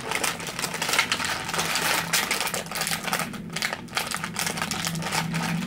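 Plastic Oreo cookie packaging crinkling and crackling as it is worked open and handled, a rapid, uneven run of small sharp clicks and rustles.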